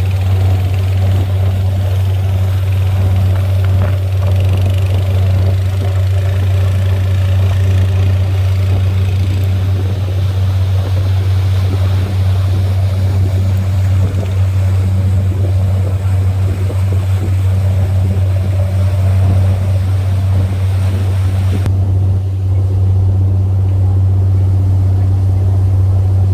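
Boat engine running with a steady low drone. The higher hiss above it cuts out suddenly near the end.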